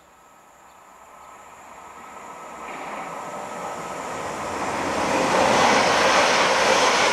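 Passenger train approaching and running through the station at speed: a rush of wheel and rail noise that grows steadily for about five seconds and is loudest near the end as the train passes.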